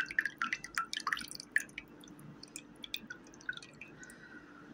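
A quick run of small drips and light ticks in the first two seconds or so, then only a few scattered ones over a faint steady hum.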